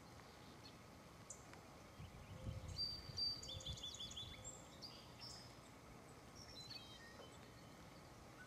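Faint outdoor ambience with a small bird chirping: a quick run of short high notes a few seconds in, then a few scattered calls. Low rumbles come and go around the first chirps.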